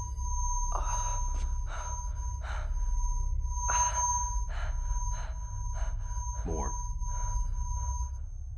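Loud, steady high-pitched electronic screeching tone with a thinner piercing whine above it, over a low rumbling drone; the tone cuts off near the end. Through it come a young man's short pained gasps and groans.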